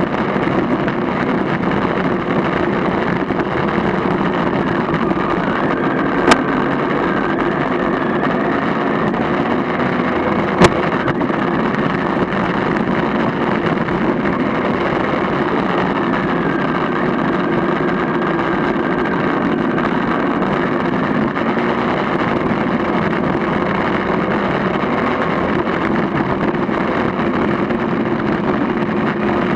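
A vehicle running steadily along a gravel track, its engine and the wind on the microphone blending into one even rush, with two sharp knocks, about six and ten and a half seconds in.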